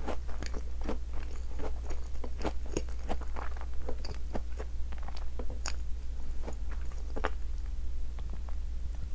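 Close-miked chewing of a chocolate-coated Tim Tam biscuit: a dense run of crisp crunches that thins out in the second half, over a low steady hum.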